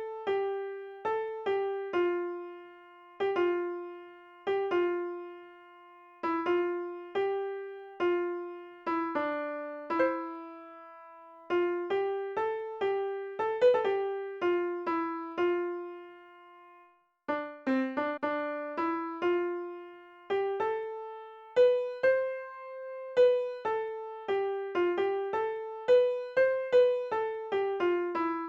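Background music: a simple piano melody of single struck notes, each ringing and fading, with a brief pause about two-thirds of the way through.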